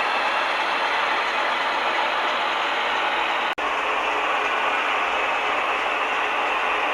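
Model train running on the layout track: a steady mechanical whirring and clattering of wheels and motor gearing. It cuts out for an instant about halfway through.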